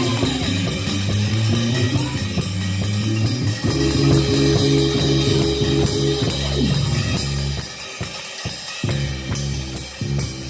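Live church band playing under the sermon: drum kit with steady cymbal taps, bass and guitar holding sustained chords, changing chord about four seconds in.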